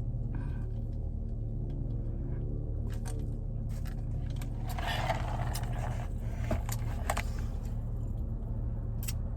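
Steady low hum of a car's air conditioning running, with scattered small clicks and a brief rustle about five seconds in.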